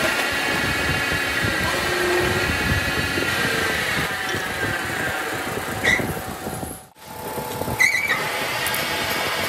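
Metal lathe's motor and belt drive running steadily with a whine, while wheel-stud blanks are changed in the chuck. Two sharp metallic clinks come in the second half, and the sound briefly drops out just before seven seconds.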